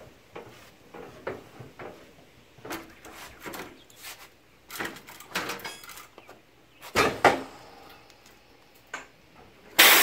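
Scattered metal clanks and knocks of a tire tool, rim and tire on a Coats 1010 tire changer as the second bead of a truck tire is worked off, with two sharp knocks about seven seconds in and a louder burst of noise near the end.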